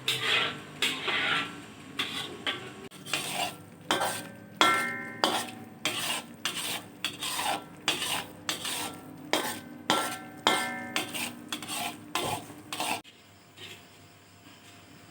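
A spoon stirring and scraping in metal cookware, about two strokes a second, with several clinks that ring; the stirring stops about 13 seconds in.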